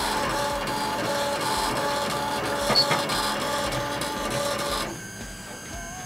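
3D printer's stepper motors running, whining in short pitched notes that change as the print head moves. About five seconds in the motion stops, leaving a fainter steady hum.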